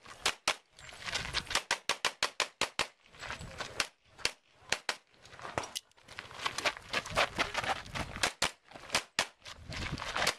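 Semi-automatic pistol fired in fast strings of shots, with short breaks about 3 and 6 seconds in and again near 8 seconds, as the shooter moves between positions on a practical-shooting stage.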